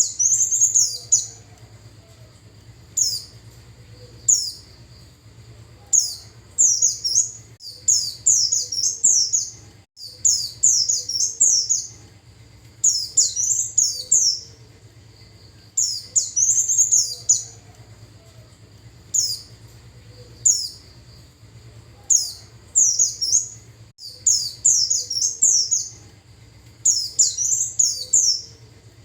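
White-eye (pleci) calling: high, thin chirps and quick twittering phrases, given in short clusters every second or two.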